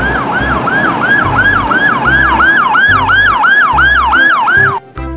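Ambulance electronic siren on fast yelp, rapid falling sweeps repeating about three times a second, with a low rumble underneath; it cuts off just before the end.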